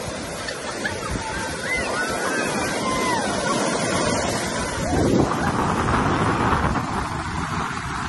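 Surf washing and breaking on a sandy beach, with wind buffeting the microphone. Voices of people in the water call out during the first few seconds, and the surf grows louder about halfway through.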